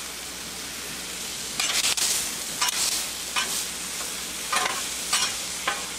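Pork chops and diced zucchini, squash and onion sizzling steadily on a Blackstone steel flat-top griddle. From about one and a half seconds in, a metal spatula scrapes and turns the vegetables across the steel in a series of short strokes.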